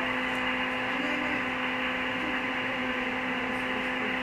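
Steady hiss of an open shortwave radio channel between transmissions, cut off above the narrow voice band of the receiver, with a steady low hum running under it.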